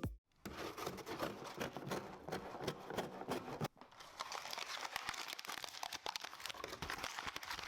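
Packaging being handled and unwrapped: an irregular crinkling and crackling with tearing sounds, pausing briefly about halfway through.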